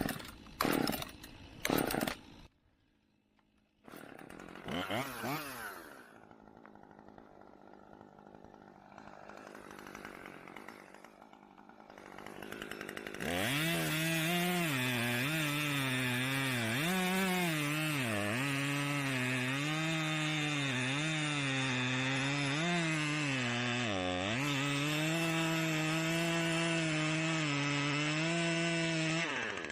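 Husqvarna T540XP Mark III two-stroke top-handle chainsaw running at high revs from about halfway through, its pitch sagging and recovering again and again as it cuts, with one deeper dip shortly before the end. Before it starts there are a few short loud sounds and then quiet stretches.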